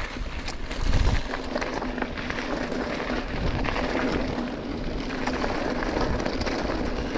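Mountain bike rolling along a dirt and gravel trail: steady tyre crunch with a low rumble, and a louder bump about a second in.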